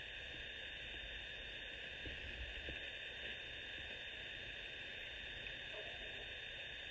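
Faint steady background hum and hiss (room tone), with a few soft clicks about two to three seconds in.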